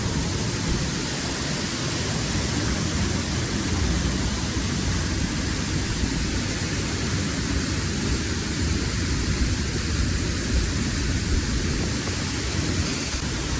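Steady, unbroken rush of a waterfall's falling water, a dense even roar with no break.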